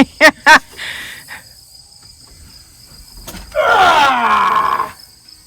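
Crickets chirping steadily. A person's quick high laughter in the first half second, then one long falling vocal cry about four seconds in.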